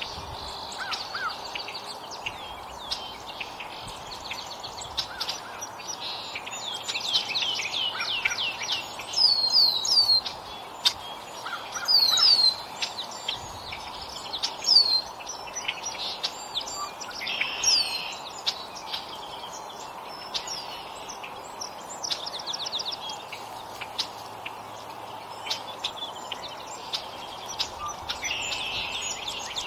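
Several small wild songbirds chirping and calling at a feeder: scattered short chirps and quick trills, with a few loud, sharp down-slurred notes about a third of the way in. A steady background hiss runs under them.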